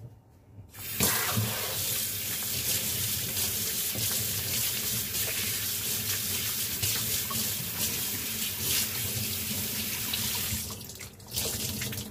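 A tap runs into a sink while hands are washed under it. The water comes on about a second in, runs steadily, and is shut off near the end, with a short second burst just before the close.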